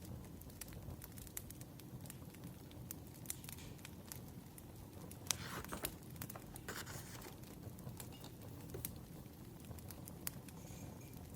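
Wood fire crackling, with scattered sharp pops over a low steady rumble. Two brief paper rustles come about five and seven seconds in.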